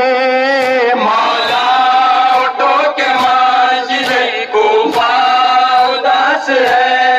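A man chanting a Shia lament (noha) in long, wavering held notes, with mourners' chest-beating (matam) slaps keeping a beat about once a second.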